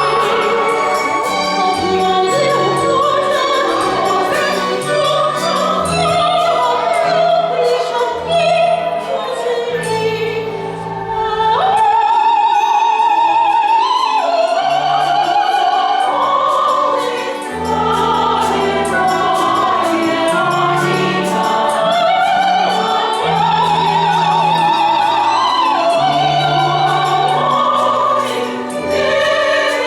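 A woman singing a musical-theatre song over instrumental accompaniment, with vibrato on long held notes and a moving bass line beneath.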